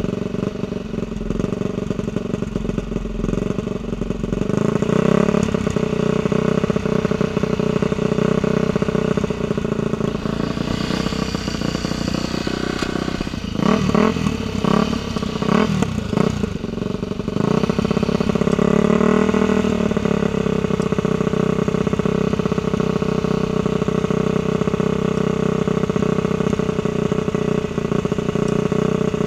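Dirt bike engine running steadily, with a few seconds of quick revving up and down near the middle.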